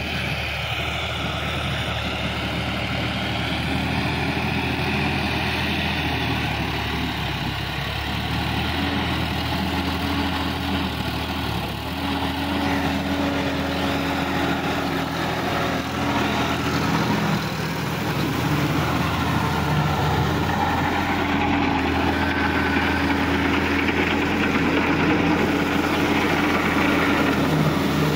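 Sonalika DI-50 RX tractor's diesel engine running steadily while it drives a rotavator through a flooded, muddy paddy field; the engine note grows a little louder in the second half.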